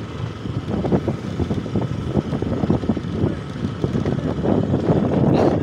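Motor scooter ridden along a rough dirt track: engine and road noise with an uneven rumble, getting louder near the end.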